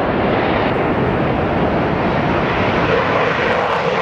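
Swiss Air Force F/A-18 Hornet's twin jet engines at full takeoff thrust as the jet lifts off and climbs: loud, steady jet noise, with a midrange rumble growing stronger near the end.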